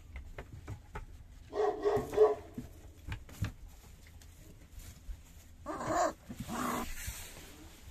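Three-week-old Central Asian Shepherd puppies whimpering and yelping in short bursts: a quick run of yelps about a second and a half in, then two louder cries about six seconds in, with faint rustling in the straw bedding between.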